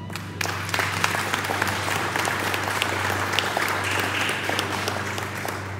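Audience applauding: many hands clapping densely together, thinning out near the end, over a steady low hum.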